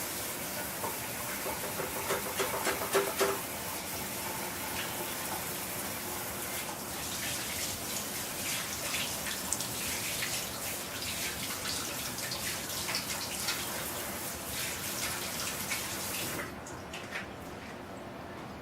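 Kitchen tap running as hands are washed under it, a steady hiss of water with some louder splashing a few seconds in. The tap is turned off a couple of seconds before the end.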